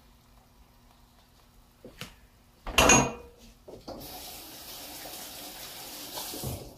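A short, loud clank a little under three seconds in, then a kitchen tap running steadily for about two and a half seconds and shutting off near the end.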